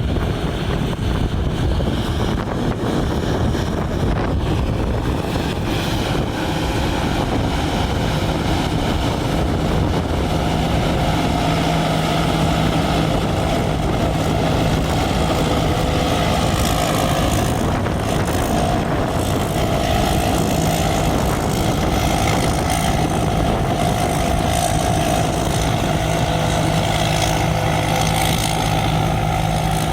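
Large rice combine harvester running steadily, a continuous engine drone with a steady low hum joining about ten seconds in.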